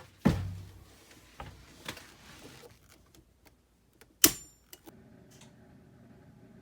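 Scattered clicks and knocks of hand work on electrical hardware: a loud knock just after the start, a few lighter taps, and a sharp metallic click with a brief ring about four seconds in.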